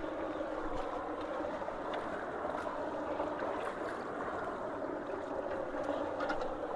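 Creek floodwater rushing steadily down into a culvert, a constant even rush of water.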